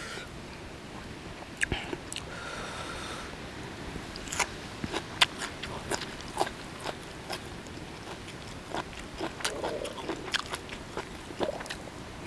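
Close-miked chewing of a crunchy mouthful of golden apple snail salad with fresh herbs, irregular sharp crunches every fraction of a second to a second.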